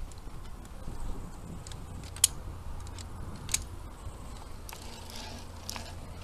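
Via ferrata carabiners clinking against the steel safety cable and iron rungs. Scattered sharp metal clicks, the loudest about two seconds in and again about a second later, over a steady low rumble on the body-worn camera's microphone.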